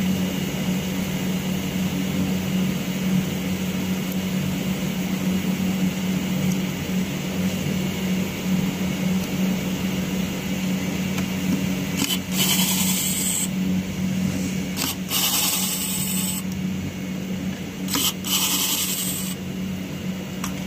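Steady low electrical hum, with three short bursts of rustling handling noise in the second half as hands move over the watch winder's case.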